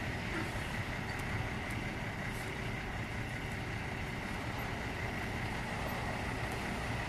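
Steady drone of diesel semi-truck engines idling and running in a truck lot, with a faint steady high whine throughout.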